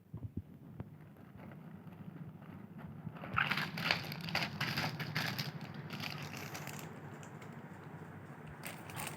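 Phone packaging being handled and unwrapped: crackling and crinkling of plastic wrap, with a few sharp clicks in the first second. The crackling is densest from about three to seven seconds in, then lighter.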